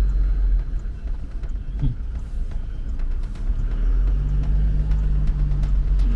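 Toyota Hilux driving off-road, its engine and drivetrain making a steady deep rumble, with a steadier engine hum coming in about four seconds in.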